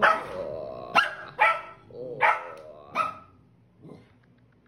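American Eskimo puppy yapping in play: five short, high barks about half a second to a second apart, then quiet.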